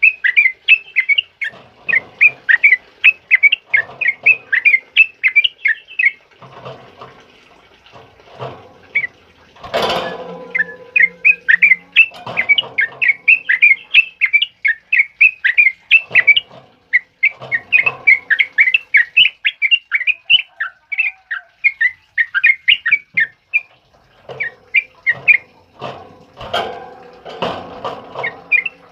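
Sooty-headed bulbul (trucukan) singing a fast run of repeated chirping notes, about four or five a second, in the rapid 'ropel' style. The run breaks off twice for a few seconds while lower, softer calls go on, and a single sharp knock sounds about ten seconds in.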